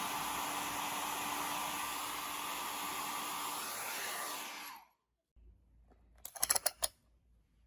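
Hot-air heat gun blowing steadily, then switched off about five seconds in. A quick run of small clicks follows about a second and a half later.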